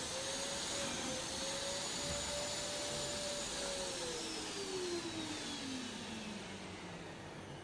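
BJC1923 industrial wet-and-dry vacuum cleaner's motor running with a steady whine, then from about three and a half seconds in winding down, its pitch falling steadily as it is switched off.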